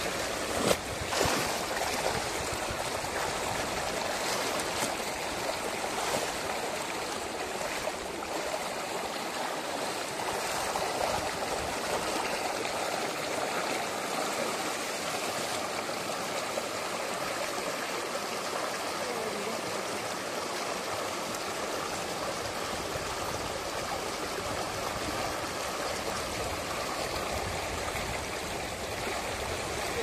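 Steady rush of running stream water, even and unbroken, with a couple of short knocks about a second in.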